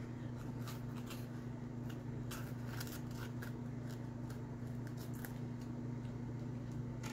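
A small knife cutting through a raw green bell pepper held in the hand, slicing it into rings: a run of faint, crisp, irregular cuts. A steady low hum runs underneath.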